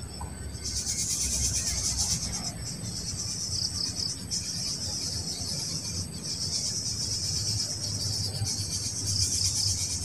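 Insects, crickets or cicadas, buzzing in a steady high chorus with a fast pulse. The chorus swells in about half a second in and dips briefly every couple of seconds, over a low rumble.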